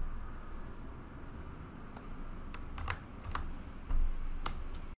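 Scattered sharp clicks from a computer keyboard and mouse being worked, about seven of them starting about two seconds in, over a faint low hum.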